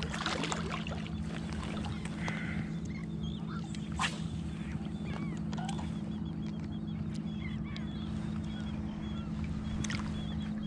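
Splashing of a hooked redfish thrashing at the surface beside a landing net while the angler wades in it: a few sharp splashes, at the start, about four seconds in and near the end, over a steady low rush of water and wind.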